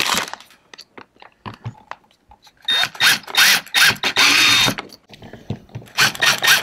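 Cordless drill/driver driving screws into a YakAttack through-hull wiring fitting on a kayak's plastic pod. It runs in several short bursts, the motor whine rising and falling in pitch with each pull of the trigger, starting about a third of the way in and again near the end, after a few light clicks of handling.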